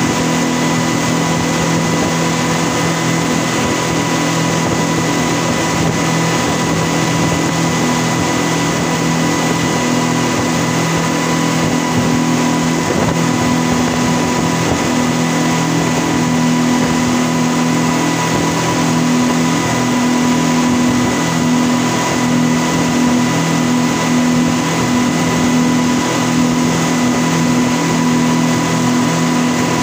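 Speedboat's outboard engines running steadily at cruising speed, a constant drone with no change in pitch, over the rushing noise of the wake and the wind.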